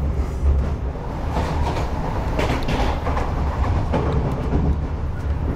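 Double-deck RER D commuter train running, heard from inside the upper-deck cabin: a steady low rumble of wheels on track, with a few brief louder clacks about halfway through.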